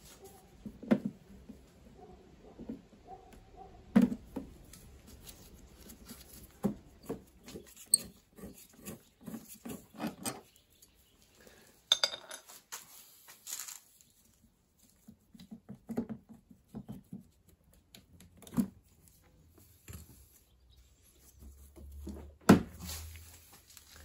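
Irregular clicks, knocks and clatter of hand tools and plastic parts as a motorcycle's air-vent panels and fuel tank are taken off, with a few sharper knocks standing out.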